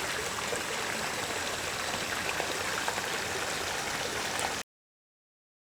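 Running water splashing and trickling steadily, like a stream or a pond inflow; it cuts off suddenly near the end.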